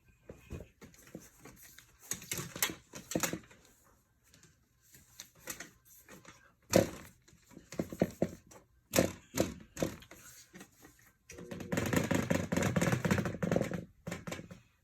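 Irregular knocking and plastic clattering from handling a broken Lasko box fan whose snapped blade is jamming the propeller. Near the end comes a steady rushing noise lasting about three seconds, which stops abruptly.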